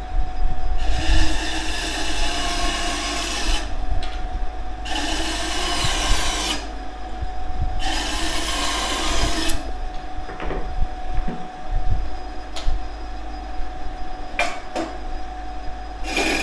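MAF Pro band saw running with a steady hum while its thin blade cuts wood, three cutting passes of about two seconds each with short lulls between. After the cuts it runs on more quietly with a few light knocks, and a new cut begins at the very end. Its wheels run on double bearings, which the seller credits for the quiet running.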